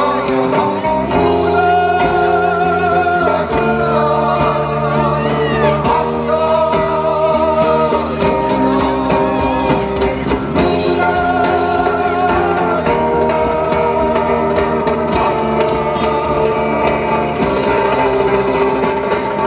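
A live rock band playing, with singing over guitar and bass. Long held notes waver in pitch throughout.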